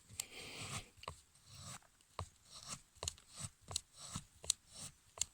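Knife blade shaving thin curls from a dry wooden stick to make a feather stick: a run of short scraping strokes, about two to three a second.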